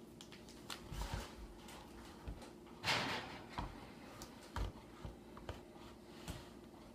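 Light clicks, taps and a brief scrape from handling a screwdriver, screws and the laptop's plastic screen assembly, over a faint steady hum.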